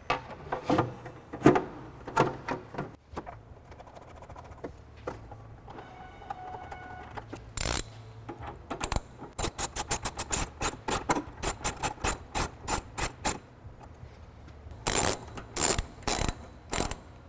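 A plastic shield cover knocking and clicking as it is fitted back into place. Then a hand ratchet with a T40 Torx socket clicks rapidly and evenly in quick runs as it drives the cover bolts home, ending with a few louder strokes.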